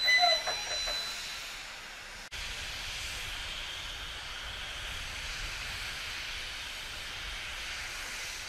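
Train noise for the first two seconds, then a steady hiss of steam from an LMS 3F 'Jinty' 0-6-0 tank engine letting off steam, with a low rumble underneath.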